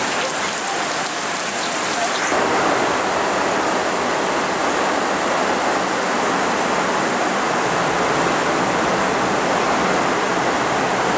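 Steady rushing noise of heavy rain, dense and even with no beat; its highest hiss drops away about two seconds in.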